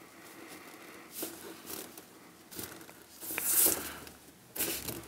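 A few small clicks and scrapes of tweezers working a pin out from between a micro toy car's plastic wheel and steering knuckle. The loudest comes a little past three seconds in.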